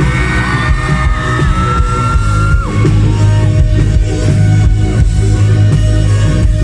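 Live rock band playing, with bass and drums under a long held high note that slides down and stops about two and a half seconds in.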